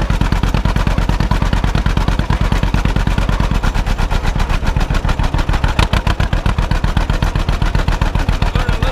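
1952 John Deere B tractor's two-cylinder engine running, its exhaust giving a rapid, even popping.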